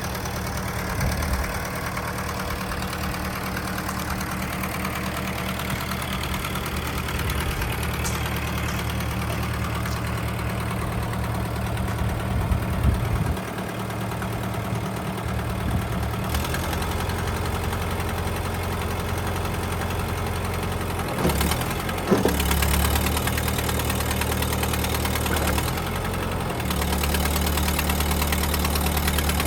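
Kubota M59 tractor's diesel engine running, mostly steady, with its note shifting several times partway through and near the end.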